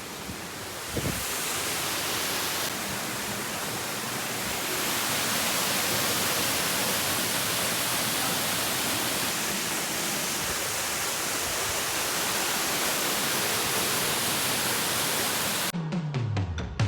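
Waterfall rushing in a steady, dense roar of falling water. Near the end it cuts off and a falling electronic sweep leads into music.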